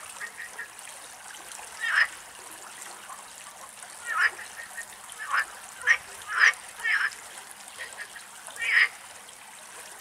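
Hooded crow cawing: about eight short, harsh single calls at irregular intervals, over a faint steady hiss.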